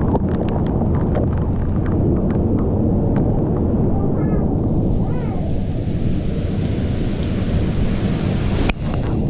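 Heavy downpour of rain with a deep, steady rumble, and sharp taps of drops striking close by during the first few seconds. The sound breaks off abruptly for a moment near the end.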